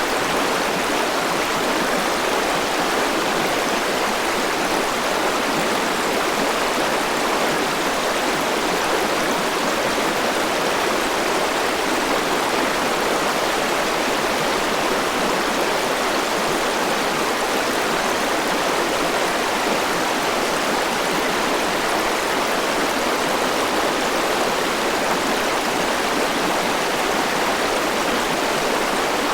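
Forest river rushing steadily over rocks: an even, unbroken rush of flowing water.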